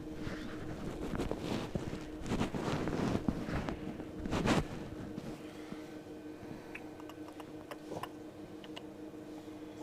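Hands working grease onto metal hub parts: irregular rustling and handling noise with light clicks, the loudest scrape about four and a half seconds in, over a steady low hum.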